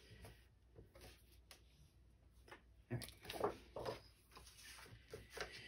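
Quiet paper handling while trimming scrapbook paper: faint clicks and rustles, louder about three seconds in.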